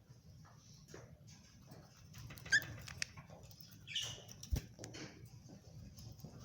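Pet birds giving a few short, faint chirps, the clearest about two and a half and four seconds in, with scattered light clicks in between.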